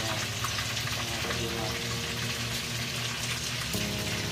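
Hot oil sizzling steadily in a frying pan as pork meatballs and chicken pieces fry.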